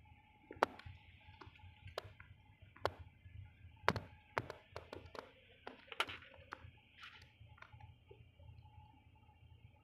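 Low steady rumble of a vehicle cabin with a faint steady hum, broken by scattered sharp clicks and taps, roughly one a second.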